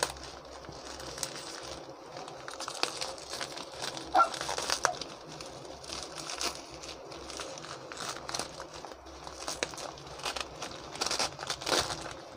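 Bubble wrap and a thin plastic bag being unwrapped by hand: continuous crinkling with many short, sharp crackles.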